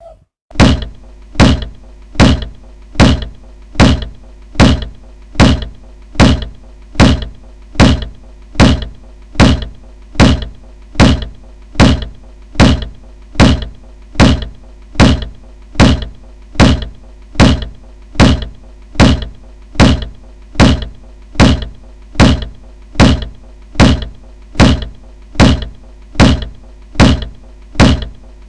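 A loud, evenly paced series of knocks, about one every 0.8 seconds and each trailing off quickly, over a steady low hum.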